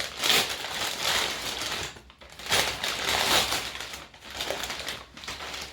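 Packaging being handled, rustling and crinkling in several bouts as an item is taken out.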